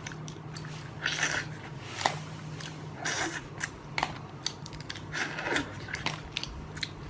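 Close-up eating sounds of clams: short slurps about every two seconds, with sharp clicks and chewing in between.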